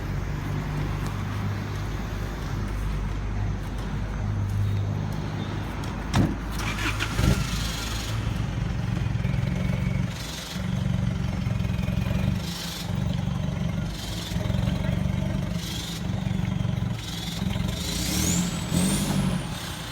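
A vehicle engine running, its hum rising and dipping every couple of seconds, with two sharp knocks about six and seven seconds in and a high rising, then falling, whistle near the end.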